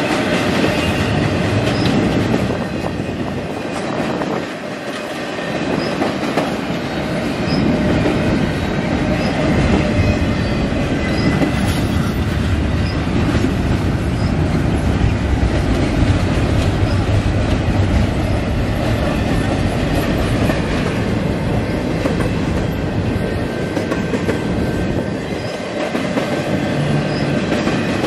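Freight train cars rolling past: a steady loud rumble of steel wheels on the rails, with a faint high wheel squeal over it.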